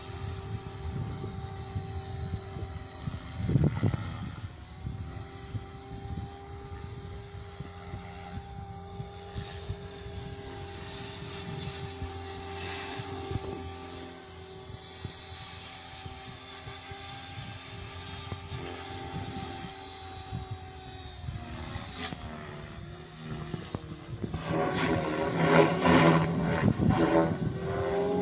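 Align T-Rex 550E electric RC helicopter in flight: the steady whine of its motor and rotor, its pitch shifting slightly as it manoeuvres. Near the end it grows louder, with a fast rotor chop.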